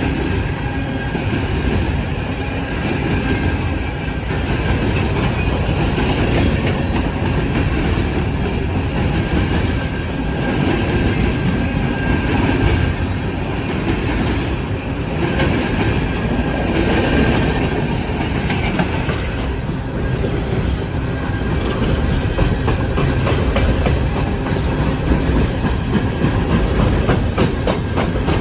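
A CSX train of empty coal hopper cars rolling past at close range: a steady rumble of steel wheels on rail with clickety-clack over the rail joints, the clicks coming thicker near the end.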